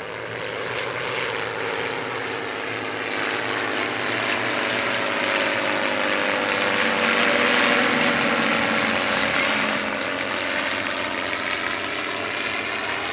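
Four Zlin Trener propeller planes flying past in formation, their piston engines and propellers swelling to loudest just past halfway and dropping in pitch as they go by, then easing off.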